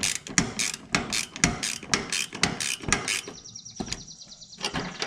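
Ratchet wrench clicking in repeated short strokes, tightening a nut; the strokes give way to a finer, faster ticking near the end.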